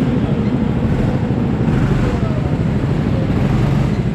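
Go-kart engine running steadily at low revs close under the onboard camera, with low rumble from the kart rolling slowly along.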